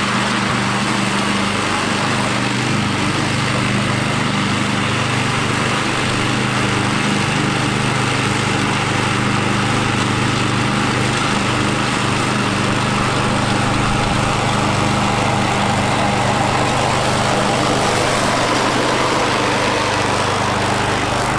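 Walk-behind lawn mower's small engine running steadily at constant speed, with a low, even hum.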